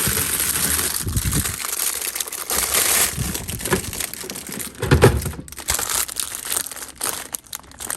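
Plastic packaging crinkling and rustling as it is handled, with a single knock about five seconds in.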